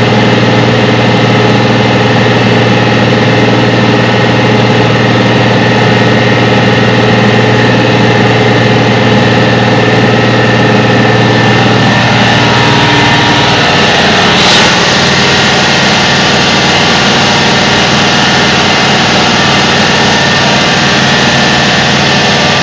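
Tractor diesel engine running steadily while pulling a tillage implement through soil. Its note drops slightly about halfway through.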